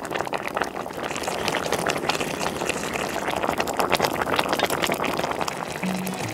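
Thick red chilli braising sauce simmering around cutlassfish pieces in a pot, a dense crackle of small bubbles popping. Music comes in just before the end.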